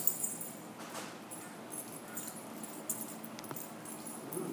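Small dogs moving about, their collar tags jingling now and then, loudest at the start. A brief rising whine comes near the end.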